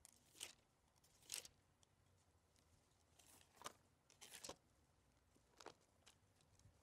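Near silence broken by about five faint, brief rustles of Bible pages being turned.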